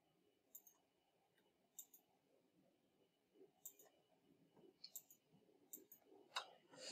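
Faint computer mouse clicks, about seven at uneven intervals, against near silence.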